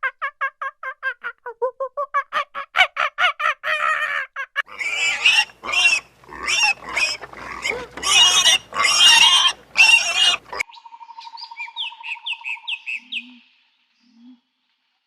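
A run of different animal calls. First come rapid repeated pitched calls, about five a second. Then loud harsh squealing calls, and near the end a short buzzing trill with quick falling chirps.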